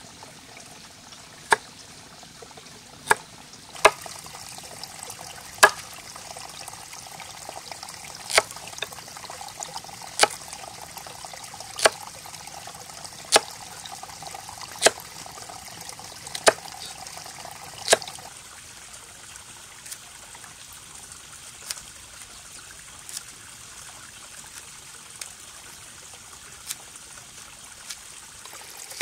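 Kitchen knife chopping carrot on a wooden log-round chopping block: a sharp knock on the wood every second and a half or so, softer in the last third. A steady trickle of running water continues underneath.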